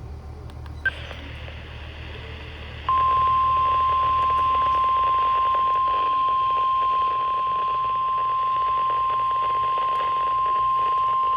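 Weather-alert attention tone from NOAA Weather Radio: a single steady tone near 1050 Hz that starts about three seconds in and holds, heard over radio hiss. A short blip comes as the hiss rises, about a second in.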